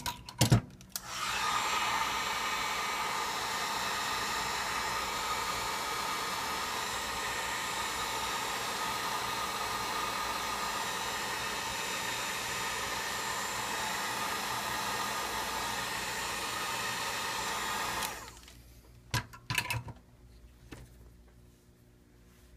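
Handheld hot-air blower running steadily for about 17 seconds, heating the phone's volume-button flex cable so it can be lifted off, then switched off abruptly. A few sharp clicks come just before it starts and again shortly after it stops.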